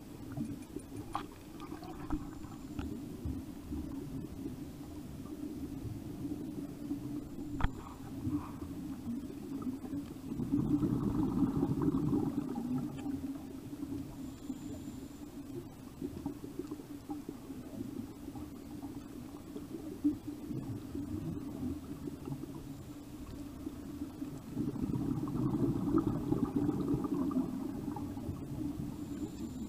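Muffled underwater sound as picked up by a diver's camera: a steady low rumble, with a scuba diver's exhaled bubbles gurgling twice, about ten seconds in and again near the end. There are a few faint clicks.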